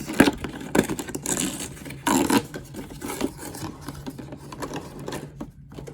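Cardboard toy packaging being handled and torn open at its perforated windows: irregular scraping, rubbing and tearing with sharp clicks, loudest about two seconds in.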